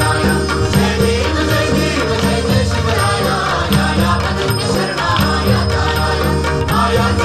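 Devotional arati music: chanted singing over a steady bass and rhythmic percussion.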